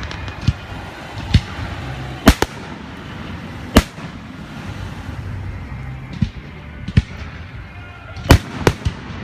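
Fireworks shells bursting: about ten sharp booms at irregular intervals, the loudest near 2, 4 and 8 seconds in, with a steady low din between them.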